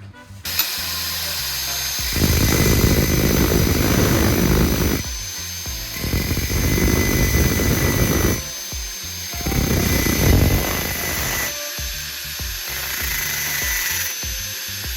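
Power-tool motors whining steadily as a spark plug spinning in a drill chuck is ground against a grinding wheel to taper its tip. Three rough grinding passes of two to three seconds each, with the motor whine running on alone between them.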